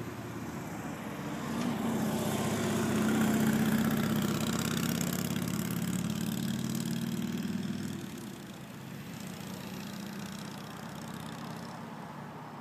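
A motor vehicle engine running with a steady low hum, growing louder about a second and a half in and fading again about eight seconds in.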